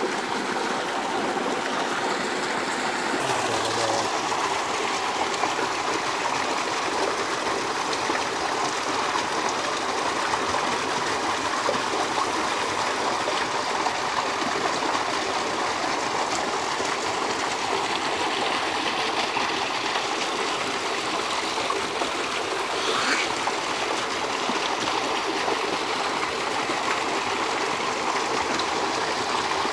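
Water gushing steadily from two pipe spouts and splashing into a concrete tank full of water.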